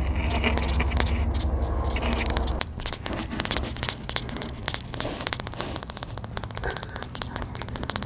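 Newborn kitten purring close up: a fast, pulsing low rumble, loudest for the first couple of seconds and then softer, a sign that he is satisfied after feeding. Dense crackling and scratching of fingers rubbing his fur runs through it.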